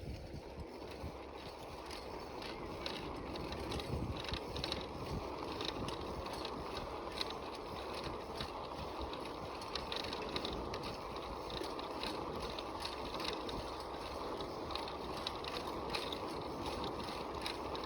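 Bicycle being ridden over a rough track: a steady rolling noise from the tyres, with irregular clicks and rattles from the chain and freewheel.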